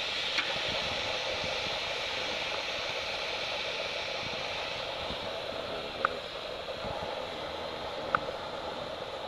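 Venison steaks sizzling on a gas grill over an infrared searing burner: a steady hiss, with three sharp clicks, about half a second in, around six seconds and around eight seconds.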